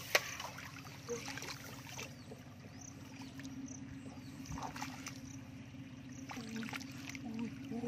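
Shallow muddy water splashing and dripping as a plastic basket is dipped and lifted through it, with a sharp splash just after the start. A low steady hum sits underneath.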